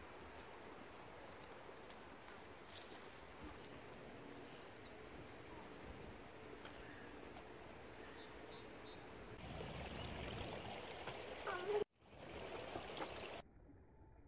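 Faint outdoor background: a steady hiss with small birds chirping now and then. About ten seconds in a louder rushing noise comes in, cuts out abruptly, returns briefly, then falls away to a duller, quieter background.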